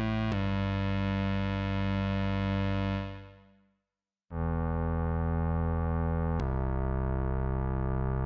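Charlatan software synthesizer playing long, held notes with a strong bass and a bright, buzzy stack of overtones. About three seconds in, the note fades out, its brightness dying away first, and there is a moment of silence. A new note then comes in and changes pitch about two seconds later.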